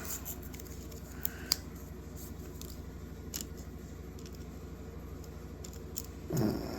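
Scattered faint clicks and light rubbing as the small parts of a folding knife, its pivot ball bearings among them, are handled and wiped clean, over a steady low hum.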